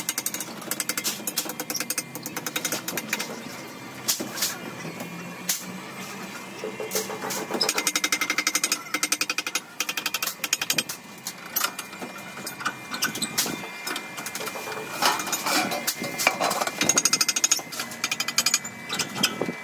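Metal clatter from handling sheet steel in a manual sheet-metal folding machine: rapid trains of rattling clicks and knocks in several bursts, the busiest about a third of the way in and near the end.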